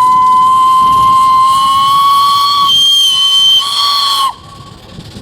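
Steam whistle blowing one long, loud note with a hiss of steam, its pitch creeping slightly upward. Its tone changes past the halfway point, then it cuts off about four seconds in with a brief falling dip.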